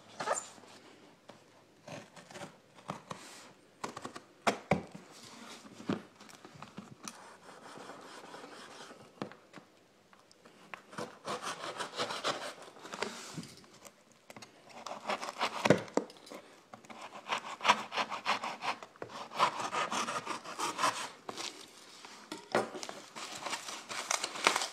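A cardboard shipping box sealed with packing tape being opened by hand: irregular scraping, rubbing and tearing of tape and cardboard, with occasional sharp knocks as the box is handled.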